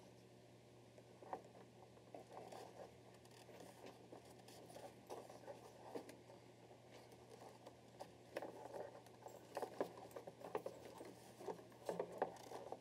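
Faint clicks and soft rustles of small model-airplane parts and tools being handled at a workbench, busier in the second half, over a low steady hum.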